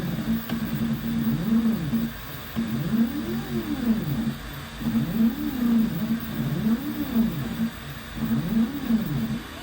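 Stepper motors of an OpenBuilds Big OX CNC machine driving its axes through a job: a low whine that rises and falls in pitch in repeated arcs as each move speeds up and slows down, with a steady hum between moves.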